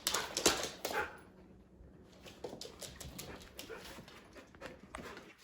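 Two excited dogs moving about: a cluster of short clicks and scuffles in the first second, then fainter scattered clicks.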